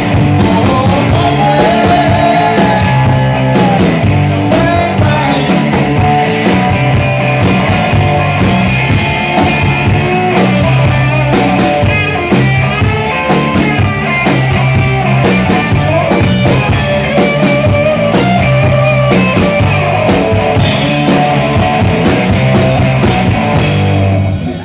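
Live rock band playing loudly with electric guitars, bass and drums. The music stops abruptly near the end.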